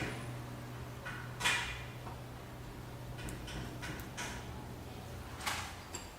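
Tools and car parts being handled during engine-bay disassembly: a few separate clacks and clinks, the loudest about a second and a half in, over a steady low hum.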